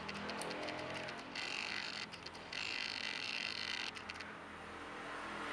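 Faint handling noise as the opened phone and its circuit board are moved in the hand: two short spells of rustling hiss with small clicks around them, over a low steady hum.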